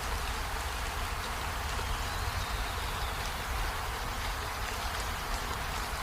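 Steady rush of water with a constant low rumble underneath.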